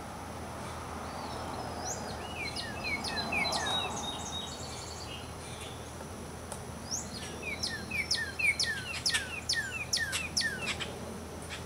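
A songbird singing two phrases, each a quick series of short falling notes; the second phrase, about seven seconds in, is longer and louder. A steady outdoor background hiss runs underneath.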